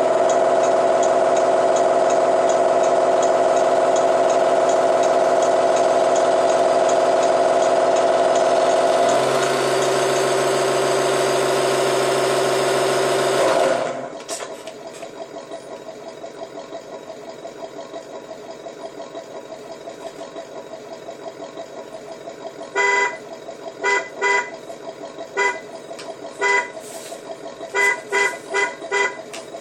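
A vehicle's add-on sound-effect horn sounding a long, loud, steady tone that shifts pitch partway through and cuts off suddenly. After that a low steady hum, then a run of short horn toots near the end.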